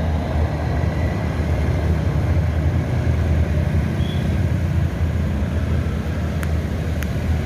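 Broken-down Batara Kresna railbus being towed across a street level crossing: a steady low rumble as the train rolls past, with two sharp clicks near the end.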